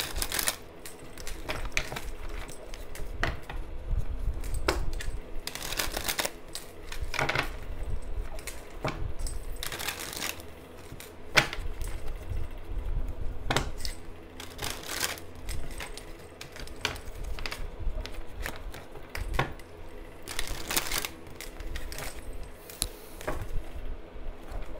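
A tarot deck being shuffled by hand: irregular clicks and taps of cards against each other and the table, with short rustling riffles every few seconds, over a steady low hum.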